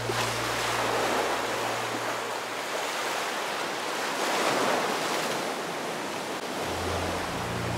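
Ocean surf washing in, swelling and easing in waves. Low background music fades out about two seconds in and comes back near the end.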